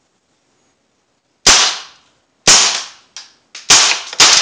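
Crosman AK1 CO2 BB rifle firing single shots on semi-auto: four sharp cracks, the first two about a second apart and the last two quicker, with two fainter ticks between them.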